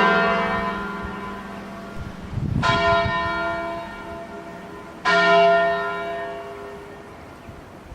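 Church tower bells, cast in 1880 by John Taylor & Co., ringing: the ringing of a quick run of strokes fades away, then two single bell strokes about two and a half seconds apart, each ringing on and slowly dying away.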